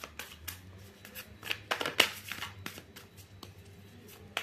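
A tarot deck being shuffled by hand: irregular soft snaps and flicks of the cards, the sharpest about two seconds in, thinning out over the last second or so.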